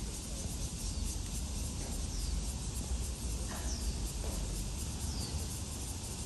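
Outdoor ambience: wind rumbling on the microphone under a steady high insect hum. Three short falling bird chirps come about a second and a half apart, with a few faint knocks in between.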